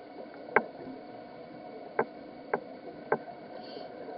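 Muffled underwater ambience heard through a camera's sealed housing: a steady dull hiss broken by four sharp clicks spaced about half a second to a second and a half apart.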